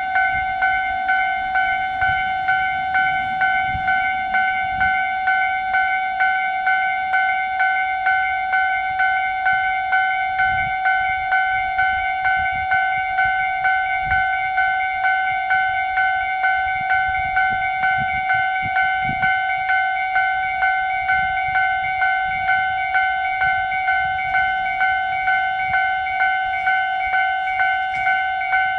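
Japanese railway level-crossing warning bell ringing with the crossing down: an electronic two-tone clang repeating evenly about one and a half times a second.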